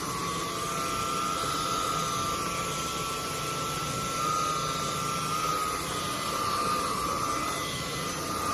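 Ultenic U18 Pro cordless stick vacuum running: a steady high motor whine over a rush of air, its pitch wavering slightly.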